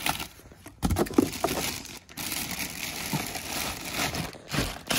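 Plastic packaging bag crinkling and a cardboard packing insert rustling as they are handled in a chainsaw box, in uneven bursts with a sharper knock about a second in.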